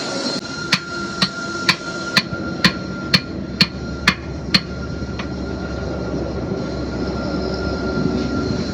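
Hammer blows during truck tyre repair work: about nine sharp, evenly spaced strikes at roughly two a second, then one lighter strike, over a steady background hum with a faint high whine.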